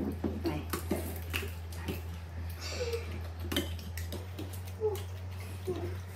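Utensils clinking and knocking against dishes and pots in scattered, irregular clicks over a steady low hum.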